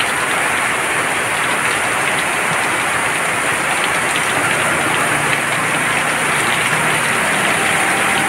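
Steady rush of water: heavy rain falling, mixed with water splashed from a plastic dipper over a glass box.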